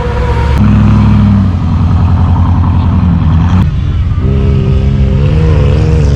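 Off-road vehicle's engine running hard under load and revving. Its pitch steps up about half a second in and falls back a few seconds later.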